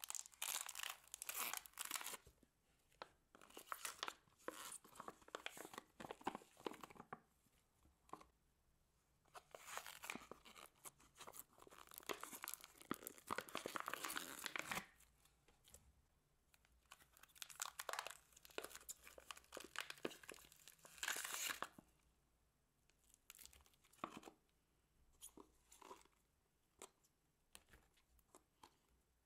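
Foam beads and slime being tipped and squeezed out of thin plastic tubs onto a mound of slime, making crackly, crinkling, squelching handling noise. It comes in bursts for about twenty seconds, then thins to scattered small pops and squishes.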